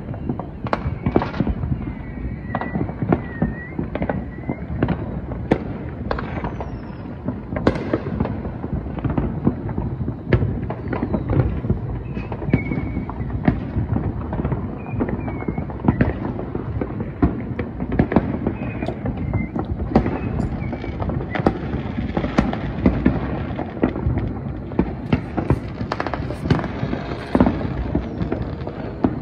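Many fireworks going off at once: a dense, unbroken crackle of irregular pops and bangs.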